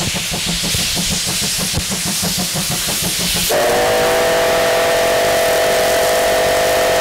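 Tank steam locomotive C12 66 working hard under power: quick exhaust chuffs over the hiss of steam from its open cylinder drain cocks. About three and a half seconds in, its steam whistle starts a long steady blast of several tones.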